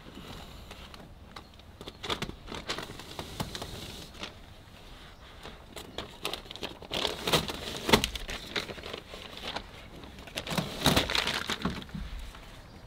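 Quilted self-adhesive insulation sheets crinkling and rustling as they are pressed by hand onto a van's metal roof and their backing paper is peeled off. The noise comes in irregular bursts, loudest about two-thirds of the way in and again near the end.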